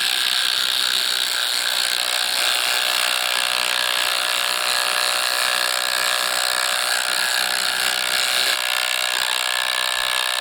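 Two cordless brushless impact drivers, a Makita TD171 and a Ridgid Octane, both on high, hammering together without a break as they drive big 3/8-inch lag bolts into a 6x6 wooden post.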